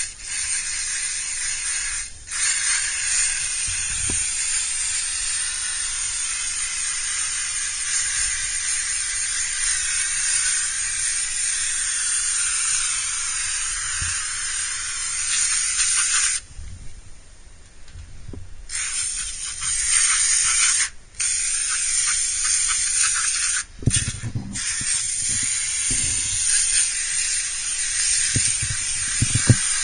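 Aerosol coil cleaner hissing as it is sprayed onto an air conditioner's coil. It comes in one long spray of about sixteen seconds, then several shorter sprays of a few seconds each, with a few light knocks.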